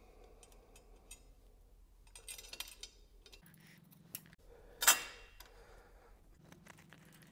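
Small metal bolts and spacers clinking as they are picked up and handled over a diamond-plate metal surface: scattered light clicks, with one sharp clink about five seconds in.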